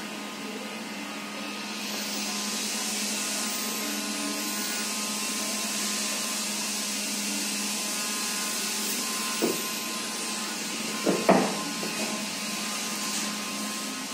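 Steady hiss of a running machine over a low hum, the hiss growing louder about two seconds in, with a few short knocks about two-thirds of the way through.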